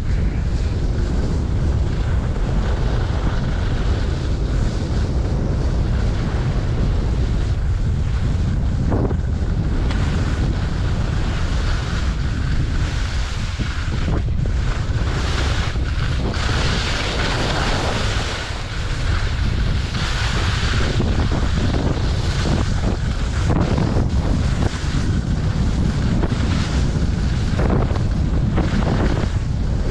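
Wind buffeting the microphone of a downhill skier, a steady low rumble, with the hiss and scrape of skis carving over packed snow, brightest about halfway through.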